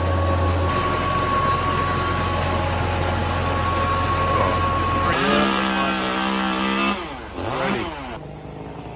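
A vehicle engine running steadily with a constant whine, then changing pitch about five seconds in, revving up and down before it drops away near the end.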